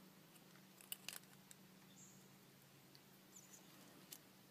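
Near silence with a few faint, short clicks, a cluster about a second in and one near the end, from tin snips working on a thin steel Speedi-Sleeve.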